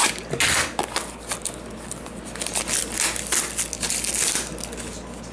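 A small cardboard trading-card box being opened by hand: a run of crinkling and rustling from the cardboard and packaging, with a sharper crackle right at the start.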